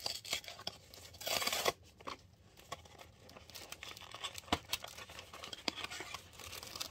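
Cardboard cornstarch box being torn open: one loud rip about a second and a half in, then scattered crinkles and clicks as the box is handled.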